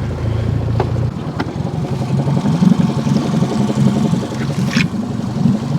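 Boat motor running, then throttled back about a second in to an uneven low idle, with a few light knocks.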